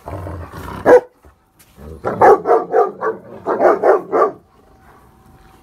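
German Shepherds play-growling during a rope tug-of-war, with one loud bark about a second in, then a quick run of about eight barks.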